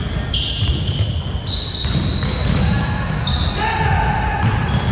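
Basketball game sounds on a gym court: a ball bouncing, with many short high squeaks of sneakers on the hardwood floor at shifting pitches, and voices in the background.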